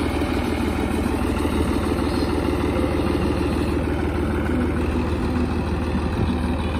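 Fiat 55-90 tractor's four-cylinder diesel engine idling steadily with a fast, even diesel clatter.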